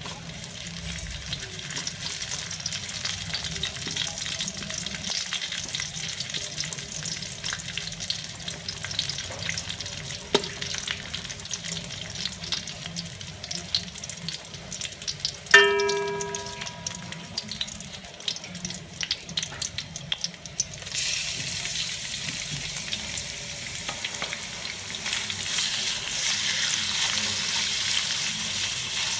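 Chopped ginger, garlic and shallots sizzling in hot oil in a steel wok while a metal spatula scrapes and taps through them. About halfway a sharp metal clang rings out briefly, the loudest sound. About two-thirds of the way in the sizzle gets louder as sliced raw pork goes into the wok.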